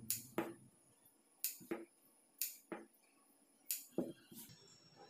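Large tailor's shears snipping through blouse fabric, with about four crisp snips roughly a second apart as the blades close.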